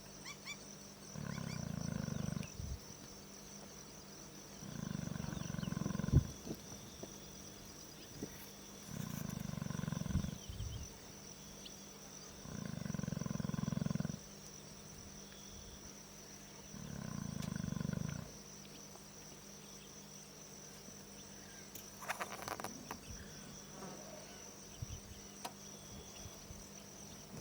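A lion snoring in slow, regular breaths: five deep snores about four seconds apart, each lasting about a second and a half, stopping about two-thirds of the way through. A steady high insect drone runs underneath.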